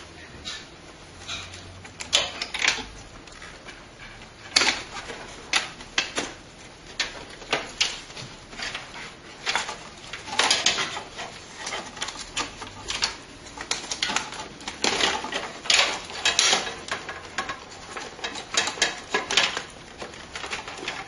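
Irregular clicking, clacking and scraping of desktop computer parts and cables being handled and pulled out of the case.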